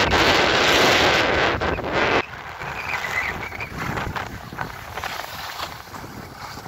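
Strong wind rushing over the microphone, cutting off suddenly about two seconds in. After that comes a quieter rush of movement over packed snow with faint scrapes.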